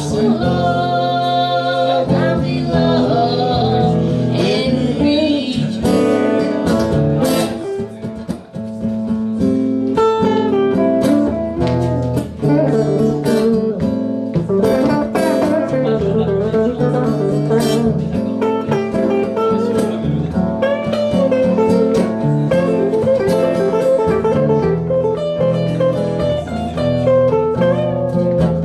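Acoustic guitar playing an instrumental passage of a slow song, picked and strummed, with many short plucked notes.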